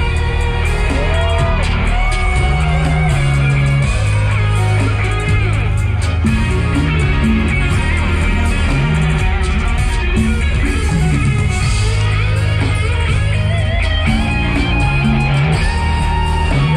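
Loud live band music over a festival sound system, led by an electric guitar playing a melodic line with bent notes over a stepping bass line.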